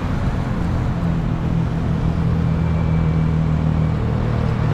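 Road traffic: a motor vehicle's engine running steadily alongside, a low hum over wind and road noise.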